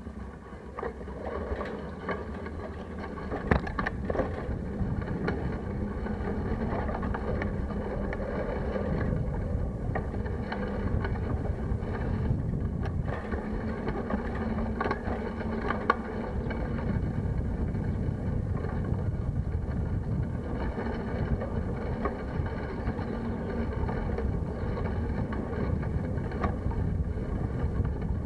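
Wind buffeting a handlebar-mounted camera's microphone over the road rumble of a bicycle riding along a concrete road. The noise swells in the first couple of seconds, and a few sharp knocks and rattles come through as the bike goes over bumps.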